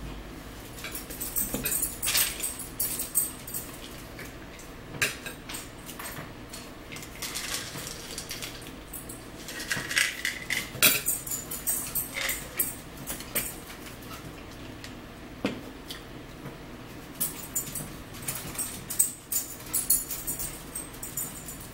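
Eating sounds close to the microphone: chewing and lip smacking in short irregular clusters, with a fork now and then clinking on a plate.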